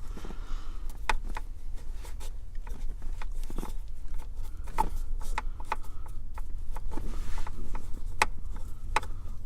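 Uneven clicks and taps of a screwdriver and plastic dashboard trim as screws are worked out of the steering column cover, over a steady low rumble.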